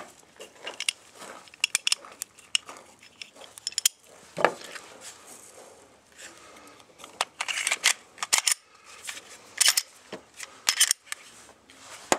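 Glock 17T training pistol being reassembled by hand: scattered clicks and short scrapes as the recoil spring, slide and polymer frame are fitted together, with a louder knock about four seconds in and quick runs of clicks later on.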